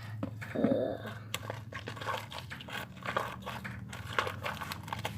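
Homemade glue-and-detergent slime being squeezed and stretched by hand, giving an irregular run of crackles and clicks.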